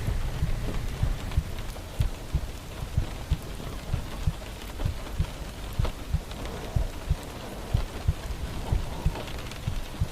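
Steady rain falling, with heavy drops landing close by as irregular dull low thuds, several a second.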